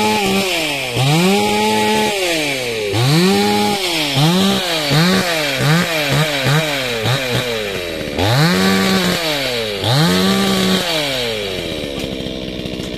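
Two-stroke chainsaw revving in repeated blips, the engine speed climbing to full and dropping back about a dozen times, then settling to a lower, steadier run near the end.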